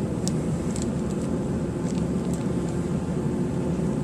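A steady low rumble, with a few faint, light clicks about a third of a second in, near one second and past two seconds.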